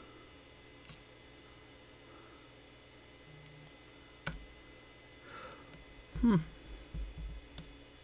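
Sparse small metallic clicks from a lock pick and tension wrench working the pins of a Metal ZX5J lock, a few scattered over several seconds, the pins being nudged one by one. About six seconds in comes a short hum-like vocal sound, the loudest thing in the stretch.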